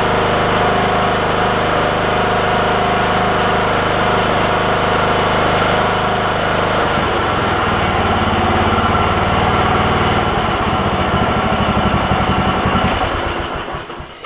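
Riding mower's freshly installed replacement engine running steadily on its first start. Its sound changes about halfway through, then it is shut off and runs down to a stop near the end.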